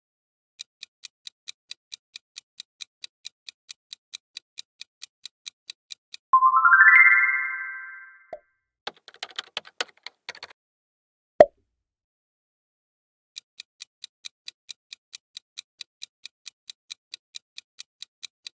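Quiz countdown-timer sound effect ticking about three times a second. About six seconds in, a bright chime rises in pitch and fades, marking the reveal of the correct answer. Near ten seconds comes a short clattering typing effect as the next question's text appears, then a single sharp pop, and the countdown ticking starts again at about thirteen seconds.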